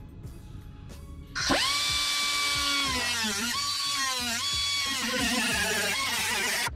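Angle grinder with a cut-off wheel spinning up about a second and a half in to a steady high whine, which sags in pitch as the wheel bites into the sheet-steel floor pan and then climbs back. Near the end it turns into a rougher grinding noise as it keeps cutting.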